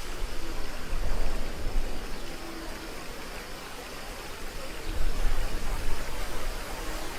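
Rushing, splashing water of a river-rapids raft ride, a steady noisy wash. Two louder surges of low rumble come about a second in and again about five seconds in.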